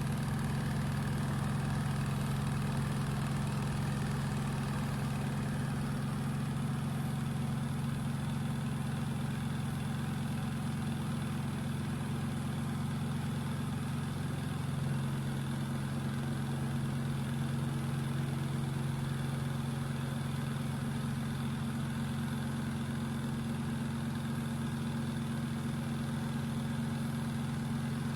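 Small electric laundry machine motor running with a steady hum; the tone shifts slightly about halfway through.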